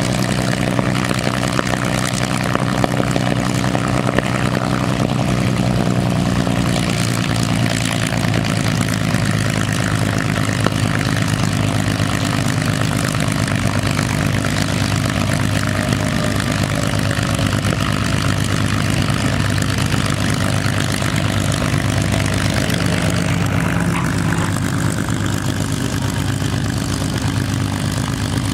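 P-51 Mustang's Merlin V12 piston engine running steadily at idle, its propeller turning.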